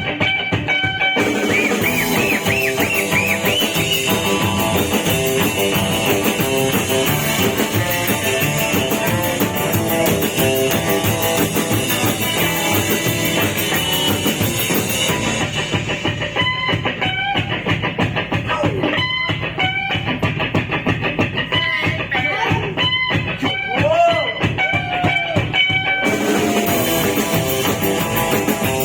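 Rock band playing an instrumental passage: electric guitar over bass and drums. About halfway through the cymbals drop out, leaving guitar with bent notes over the rhythm, and the full kit returns near the end.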